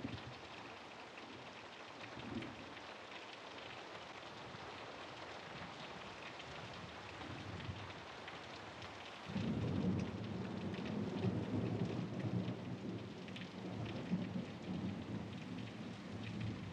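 Steady rain falling, with a low rumble of thunder that comes in suddenly about nine seconds in and keeps rolling.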